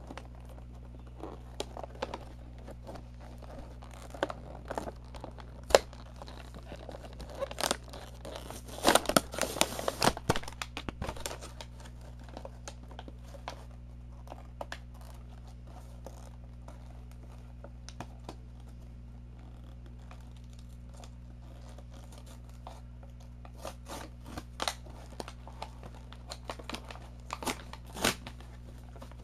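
Toy packaging being torn open and crinkled by hand, in scattered rustles and clicks. A dense run of tearing comes about eight to eleven seconds in, then a quieter spell, and more crackling near the end. A steady low hum runs underneath.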